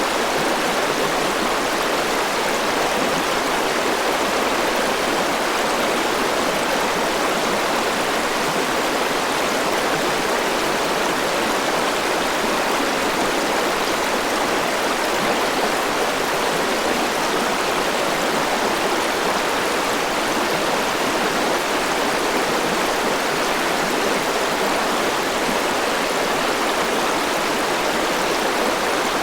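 A forest mountain river rushing steadily over rocks, an even wash of flowing water with no let-up.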